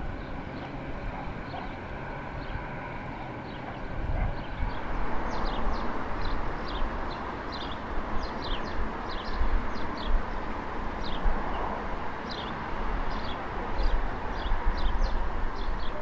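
Small birds chirping in short, quick downward-sliding notes, one or two a second, starting about four or five seconds in, over a steady rush of wind noise.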